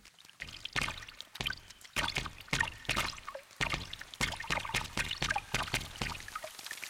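Large water drops falling and splashing one by one at an irregular pace, a few a second: the first drops of a rain shower.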